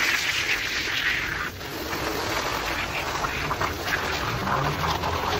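Wet scrubbing of a soaked shag rug: swishing and squelching of the sodden pile as it is rubbed, with a short pause about a second and a half in.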